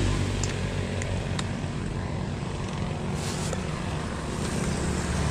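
A few sharp clicks as a Yamaha scooter's key switch is turned and the seat latch released, then a brief rustle of a plastic bag being pulled from the under-seat storage, over a steady low rumble.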